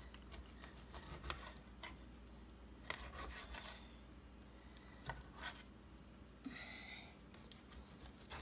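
Knife slicing raw chicken breast in a glass baking dish: faint scattered clicks and taps as the blade meets the glass, over a low steady hum. A brief higher-pitched tone sounds about six and a half seconds in.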